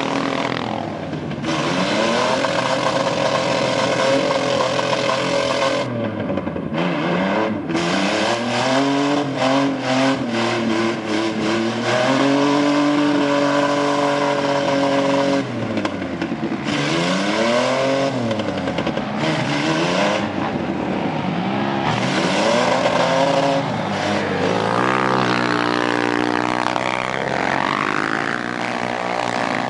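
A mud truck's engine revving up and down over and over as the truck churns through a deep mud pit with its wheels spinning, holding high revs for a few seconds midway.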